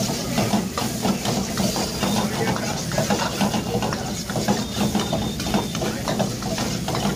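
Long-handled metal ladle stirring and scraping chicken in spice masala around a metal wok over a gas burner, with frequent clicks of the ladle against the pan amid sizzling and hiss, over a steady low hum.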